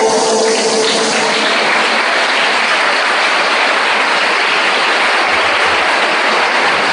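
Audience applause, a dense steady clapping that rises as the rondalla's final sung chord dies away in the first second or so, then carries on at an even level.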